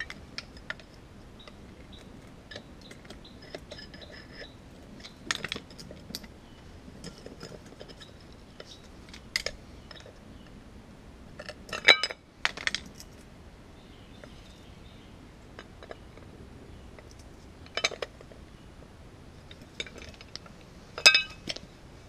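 Metal parts of a dismantled ECM condenser fan motor and hand tools being handled, giving scattered metallic clinks and taps, with louder clusters of clinks around the middle and near the end.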